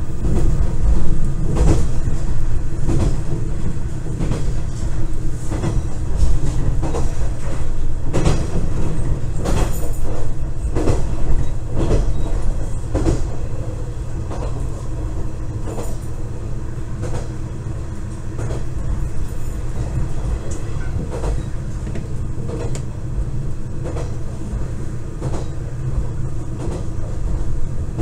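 KiHa 110 series diesel railcar running on jointed track, heard from inside the rear cab: a steady low engine and running rumble, with wheels clicking over rail joints. The clicks come thickest about eight to thirteen seconds in, and the sound grows somewhat quieter from about halfway.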